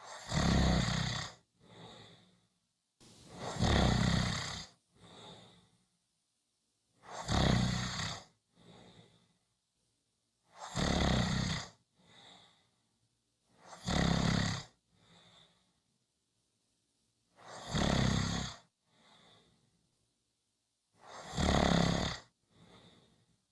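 Steady, rhythmic snoring: seven loud snores about every three and a half seconds, each followed by a fainter, shorter sound.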